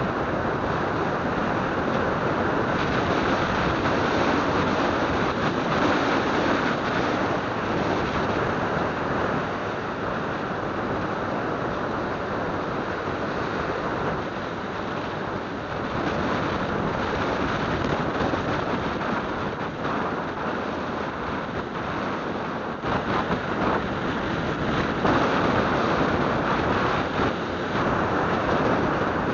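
Steady wind rush over the microphone of a moving motorcycle, with the motorcycle's engine and tyre noise blended in beneath.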